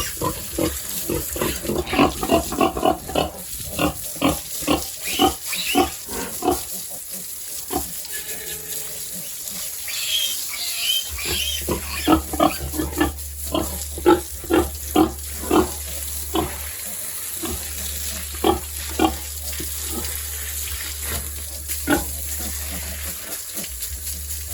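Pigs grunting in long runs of short grunts, several a second, with a pause in the middle. A steady low hum joins about halfway through and cuts out briefly twice.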